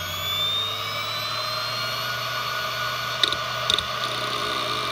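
Western Digital Expert 313600 7200 rpm hard drive spinning up: the spindle motor's whine rises and levels off at full speed. About three seconds in come a few quick head clicks as the drive initializes.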